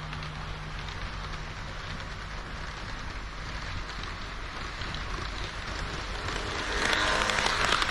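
HO-scale model train running on its track: a steady rushing rattle of wheels on the rails with many fine clicks, getting louder about seven seconds in.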